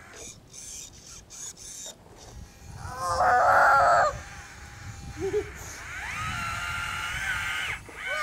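A rooster crowing: one loud call about a second long about three seconds in, and a longer, fainter call later on.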